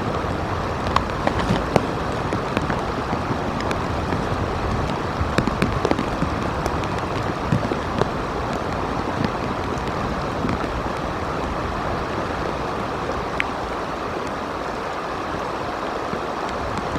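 Steady rain and wind noise on the nest camera's outdoor microphone, with scattered ticks of drops hitting nearby.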